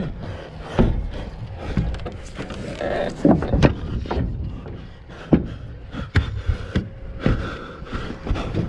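Irregular knocks and thumps with rubbing in between, picked up by a chest-mounted camera on a moving obstacle racer; the loudest knocks come about a second in and around three and a half seconds in.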